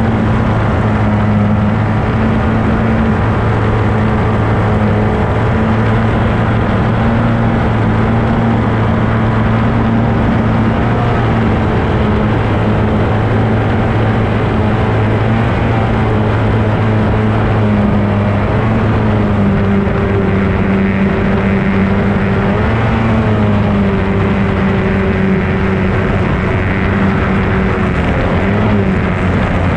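B Stock Hydroplane's two-stroke racing outboard running steadily at speed, heard from on board, with a rushing haze of wind and water; the engine pitch dips and wavers slightly a few times in the second half.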